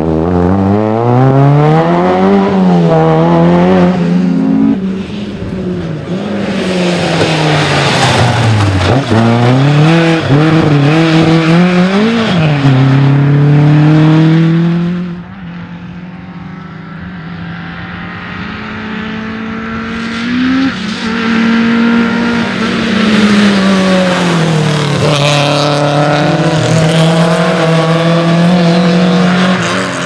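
Rally car engines revving hard, the pitch climbing and dropping again and again through gear changes. About halfway through it switches to quieter cars approaching from further off, and the engine noise builds up loud again near the end.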